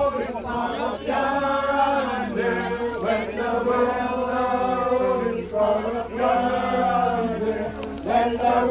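A group of mourners singing a hymn together, holding long drawn-out notes with short breaks between phrases.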